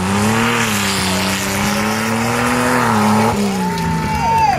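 A rough-track racing truck's engine runs hard at high revs, its pitch wavering, then drops back about three seconds in. A high steady whine comes in near the end and falls off sharply.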